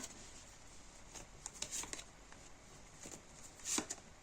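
Tarot cards being handled: soft, scattered rustles and light taps of cards against each other and the table.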